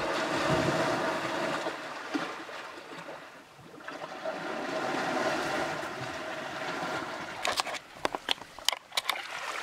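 A boat on the water: a steady rushing, splashing noise that dips about three and a half seconds in and builds again, then a run of sharp knocks near the end.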